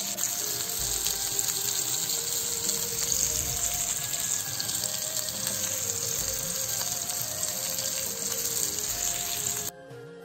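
Masala-coated rohu fish steaks shallow-frying in coconut oil in a nonstick pan: a steady sizzle that cuts off suddenly near the end. Soft background music plays under it.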